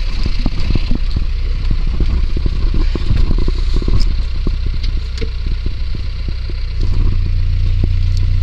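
A vehicle engine running steadily while it pulls a rope of strung-up dead hogs, with many quick clattering and scraping knocks over it. The engine gets louder about seven seconds in.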